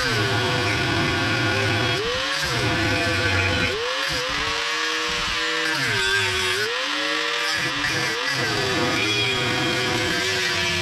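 A motor running, its pitch rising and falling unevenly several times.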